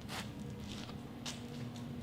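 Outdoor ambience with a low steady rumble and a few soft scuffs or rustles, heard just after the start and again past the middle.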